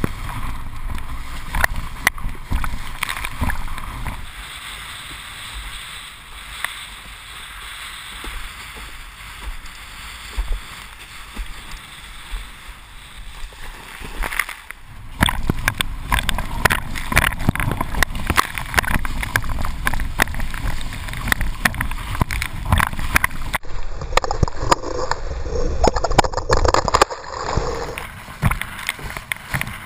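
Wind buffeting a GoPro's microphone and water rushing and splashing under a windsurf board at speed. The noise drops to a softer hiss for about ten seconds in the middle, then the loud rush and crackle return.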